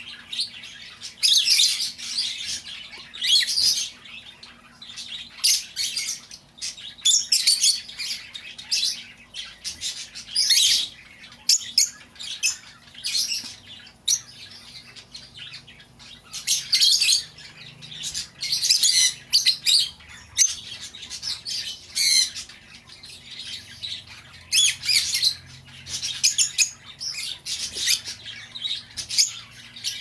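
Rosy-faced lovebirds calling: shrill, high-pitched squawking chatter in rapid bursts, coming every second or two with short gaps between.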